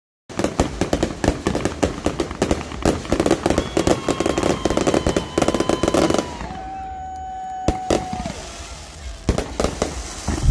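Fireworks display: a dense run of rapid crackling bangs for about six seconds, then a few louder single bangs near the end. A held whistle-like tone runs through the middle, stepping down in pitch about six seconds in.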